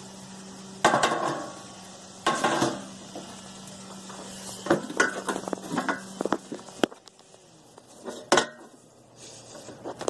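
Crowbar clanking and prying against a metal folding chair: a series of sharp metallic clanks with ringing, two loud ones in the first few seconds, a quick run of clanks around the middle, and another loud one near the end.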